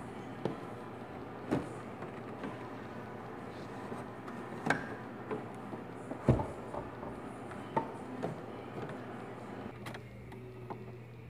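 Plastic dashboard trim of a Dodge Neon SRT-4 knocking and clicking as it is handled and pressed into place: a string of sharp knocks, the loudest about six seconds in, over a steady low hum.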